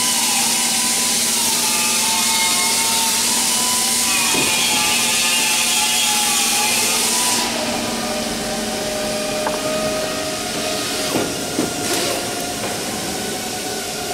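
Steady workshop machine noise: a loud hiss with a wavering whine through it. The hiss drops away about seven seconds in, leaving a fainter steady hum, with a few light clicks and knocks near the end.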